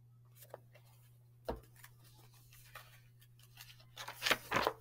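A hardcover picture book being handled: a soft thump about a second and a half in, then paper rustling as a page is turned near the end, over a steady low hum.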